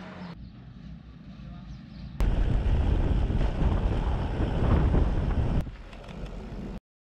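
Wind buffeting the microphone of a bike-mounted camera while cycling along a road, a heavy low rumble. It follows a quieter stretch of outdoor background, and the sound cuts off suddenly near the end.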